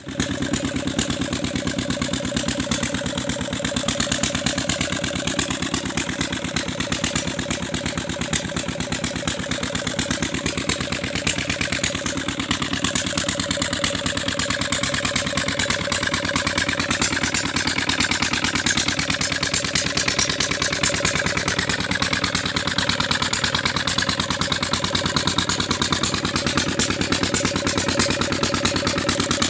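An engine running steadily at an even speed, with a rapid, regular beat.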